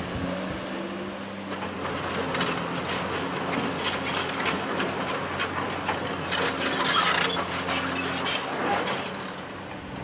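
Tracked excavator working in a gravel riverbed: a steady diesel engine hum with scattered clanks and rattles, and a thin high whine for a few seconds in the middle.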